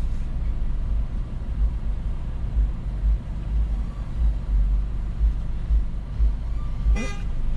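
Low, uneven rumble of a car running, heard from inside the cabin, with a brief higher sound near the end.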